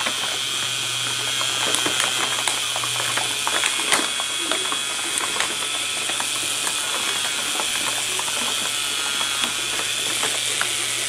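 A K'nex motor driving a homemade shredder whose cutting wheels are stacked CDs, running steadily with a rapid plastic clicking of gears, a high whine and a low hum, until it is switched off at the very end.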